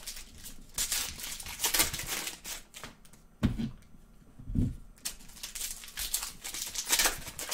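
Foil wrappers of Bowman baseball card packs crinkling and tearing as packs are opened by hand. Two dull thumps, a little over a second apart, come near the middle.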